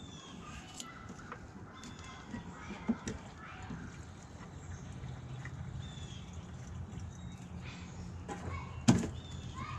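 A plastic fuel can being handled and its spout worked: scattered clicks and knocks, with one sharp knock near the end.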